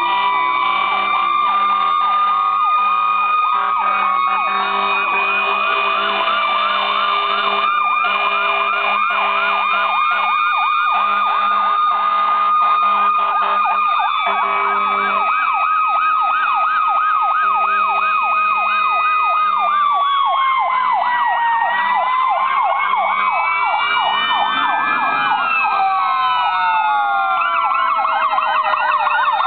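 Several emergency-vehicle sirens sounding at once, overlapping: a held high wail, a fast up-and-down yelp, and slow rising and falling wails that multiply in the last third as more sirens join in.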